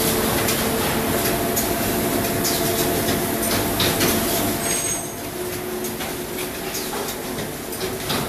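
Automatic coat hanger production line machinery running: a steady machine hum with irregular clicks and knocks, a little quieter from about five seconds in.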